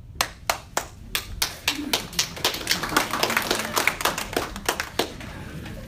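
Small audience applauding: a few separate claps at first, building to dense applause through the middle, then thinning out near the end.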